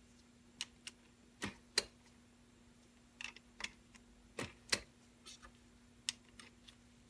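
300 Blackout brass cases clicking against the steel shell plate of a Dillon 1050 progressive reloading press as they are set into its stations by hand: about a dozen sharp clicks at irregular intervals, over a faint steady hum.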